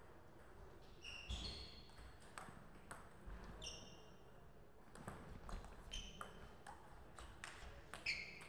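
Table tennis ball bouncing on the table and struck by bats: a dozen or so light clicking pings at uneven intervals, the loudest near the end.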